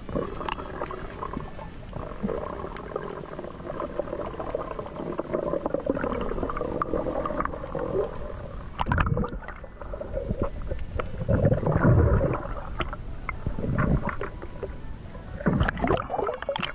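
Muffled underwater sound picked up by a camera held below the surface while spearfishing: water moving and gurgling around the housing, with a few louder surges of rushing water and bubbles in the second half.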